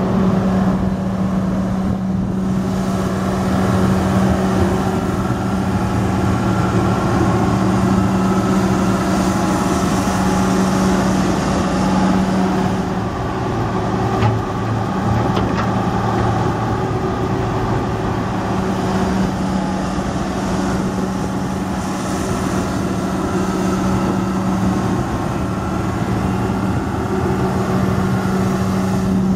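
Six-cylinder turbo diesel engine of a Hitachi EX330LC excavator running steadily with a strong low hum. The hum eases off about halfway through and comes back near the end.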